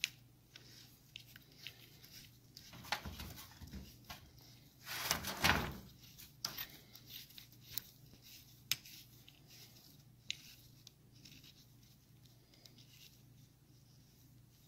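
Light metallic clicks and taps of hands fitting a washer and running a nut onto a motorcycle clutch hub's centre shaft. A longer, louder scraping rustle comes about five seconds in.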